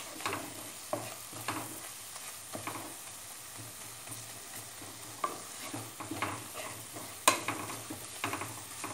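A spatula scrapes and stirs a frying onion-tomato masala in a pan in irregular strokes over a faint steady sizzle, as the egg-puff filling is roasted down. About seven seconds in there is one sharp knock, the loudest sound.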